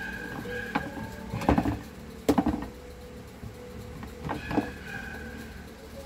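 Rear grille of a Mondial electric fan being pressed onto the motor housing and snapped into its latches: a series of short knocks and clicks, the loudest about one and a half and two and a half seconds in, with a couple more near the middle-to-end.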